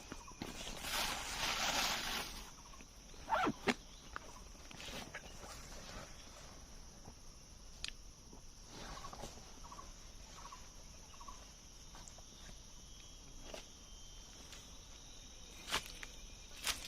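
Birds calling in the forest: a few short pitched calls over a steady high hiss, with scattered sharp knocks and rustles.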